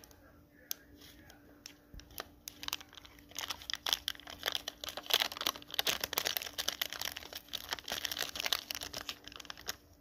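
Foil seasoning packet crinkling as it is shaken and squeezed to empty soup-base powder onto dry instant noodles. The crackling is sparse at first and grows busier and louder from about three and a half seconds in.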